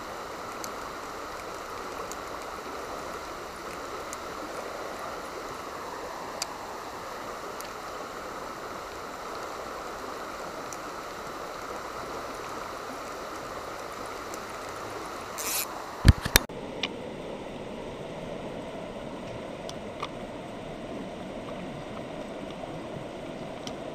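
River water flowing and rushing steadily. About two-thirds of the way in, a few sharp knocks cut through it.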